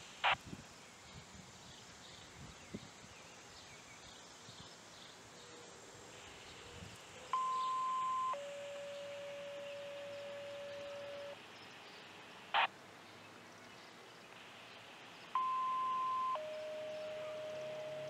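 Two-tone sequential paging tones, the kind sent over radio to set off an outdoor warning siren: a higher tone held about a second dropping to a lower tone held about three seconds, sent twice. Faint outdoor background with a couple of short sharp chirps.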